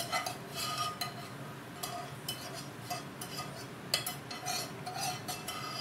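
A spoon scraping and clinking repeatedly against a frying pan as thick paneer gravy is scooped out of it into a steel bowl. Short irregular clicks and scrapes, with one sharper knock about four seconds in.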